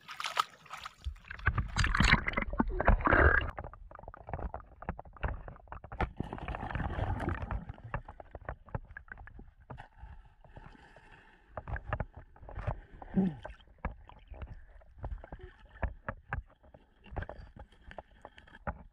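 River water splashing and sloshing loudly for the first few seconds, then the muffled sound of being underwater: a low rumble broken by many scattered clicks and knocks.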